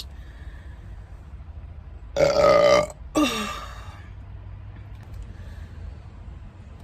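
A woman's loud, drawn-out burp about two seconds in, lasting under a second, followed by a short sound that drops in pitch.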